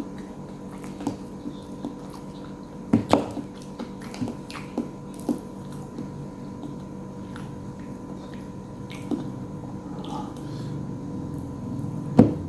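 A person eating: scattered short clicks and smacks of chewing and handling food, with two louder knocks about three seconds in and near the end, over a steady low hum.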